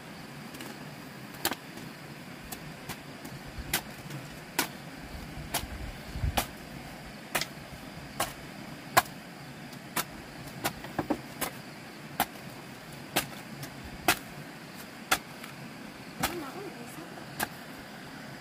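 A series of sharp, short knocks, roughly one a second and sometimes in quick clusters, over a steady background hiss.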